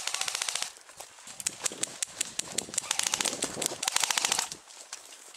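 Airsoft rifles firing on full auto: four bursts of rapid, evenly spaced clacking, a short one at the start and three longer ones after it.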